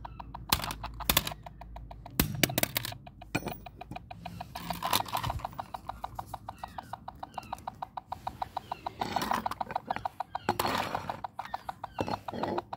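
A claw hammer strikes a plastic toy walkie-talkie on concrete paving, giving several sharp blows. From about four seconds in there is also a fast, even run of clicks.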